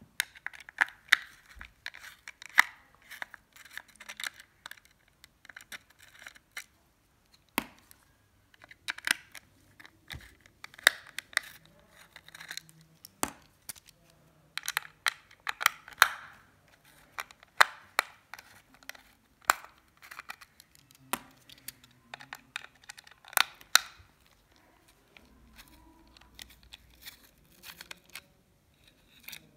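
Small screwdriver turning out the screws that hold the circuit board in the tester's plastic case: clusters of sharp clicks and short rasping scrapes, with knocks from the case being handled, quieter near the end.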